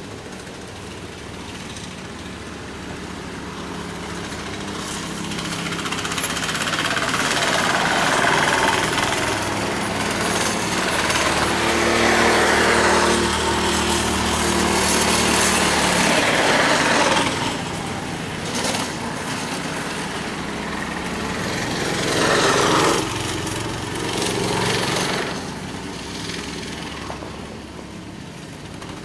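Go-kart engine buzzing at high revs as a kart laps the track: it grows louder as the kart approaches, runs loud and steady for a few seconds, then drops off sharply past the middle. Two shorter swells of engine noise follow near the end as karts pass again.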